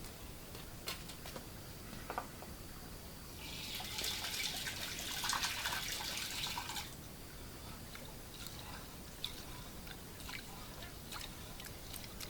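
Water pouring or splashing for about three and a half seconds, starting a few seconds in, amid scattered light clicks and knocks.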